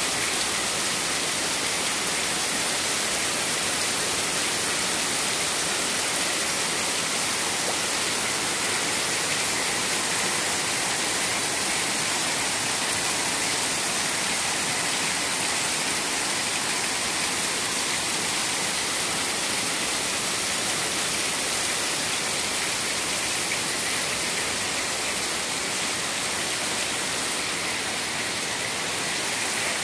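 Heavy downpour of rain splashing onto water-covered concrete: a steady, even hiss that neither builds nor breaks off.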